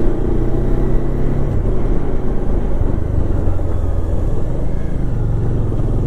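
Motorcycle engine running steadily at low road speed, heard from the rider's seat.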